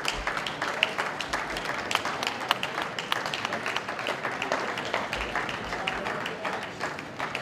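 Spectators applauding, a steady patter of many hand claps.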